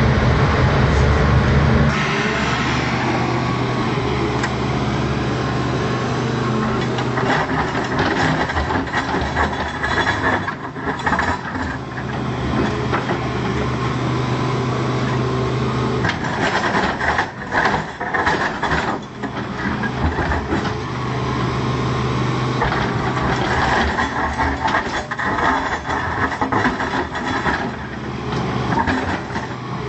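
Volvo EC210C excavator's diesel engine running steadily, its pitch and load shifting as the machine works, with irregular knocks and clatter from the bucket and attachment, thickest around the middle.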